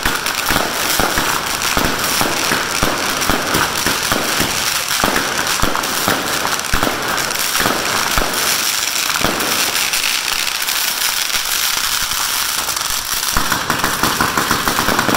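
Fireworks going off: a fast string of bangs and crackles from stars bursting overhead. The bangs thin out after about ten seconds, and a steady hiss comes in near the end.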